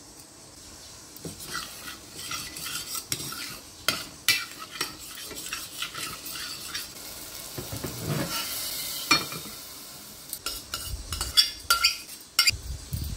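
A steel spoon stirring and scraping mashed chana dal and ghee around a stainless-steel pressure cooker, with repeated clinks and scrapes of metal on metal. Near the end there is a quick run of sharper knocks and scrapes as the dal is scraped out of the cooker into a pan.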